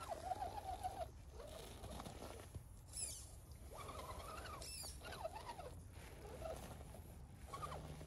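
Electric motor and gear drivetrain of an RC scale crawler whining at low speed, its pitch rising and falling as the throttle is worked over rough ground, with two brief high whines.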